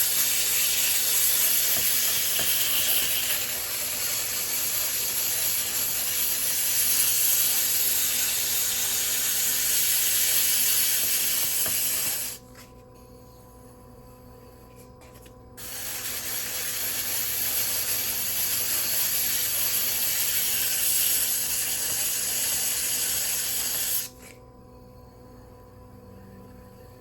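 120-grit diamond sanding pad grinding against the bottom of a ceramic pot turning on a potter's wheel: a loud, harsh, steady hiss. It stops for about three seconds about twelve seconds in, starts again, and stops near the end, while the wheel's low motor hum carries on.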